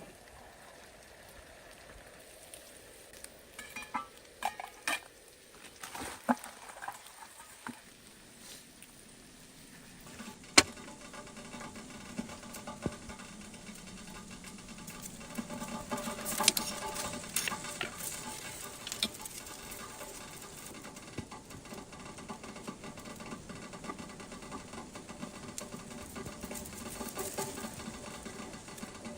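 Food frying in a pan. Scattered clicks and light clatter come first, then about ten seconds in a sharp click, and after it a steady crackling sizzle that swells for a few seconds.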